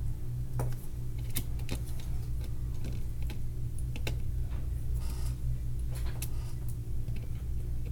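Irregular light clicks and taps of small tools and phone parts being handled during an iPhone 6 screen repair, over a steady low hum.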